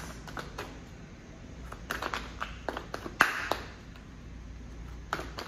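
A deck of tarot cards being shuffled by hand, overhand: irregular clusters of soft card-on-card taps and slides, the sharpest about three seconds in.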